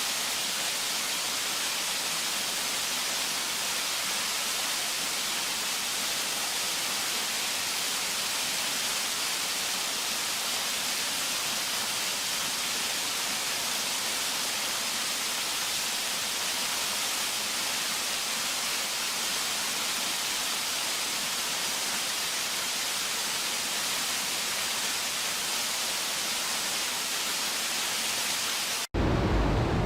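Waterfall water rushing in a steady, bright, even hiss. Near the end it cuts off abruptly and a louder, deeper rushing sound starts.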